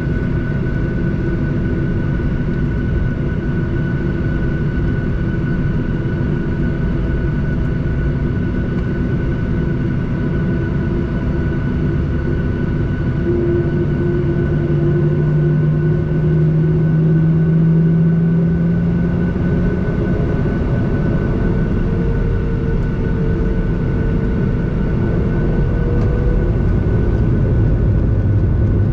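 Boeing 737-800 cabin noise while taxiing: a steady drone and whine from the CFM56 engines at low thrust. About halfway through, a deeper tone comes in and slowly rises in pitch as the engines pick up slightly.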